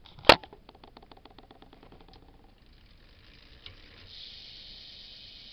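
A sharp thump, then the freewheel of a BMX bike's stock 9-tooth cassette hub clicking rapidly as the rear wheel coasts, the clicks slowing and dying away over about two seconds. The ticking is fairly quiet, which the rider puts down to the cold making the driver sound quieter. A steady hiss comes in near the end.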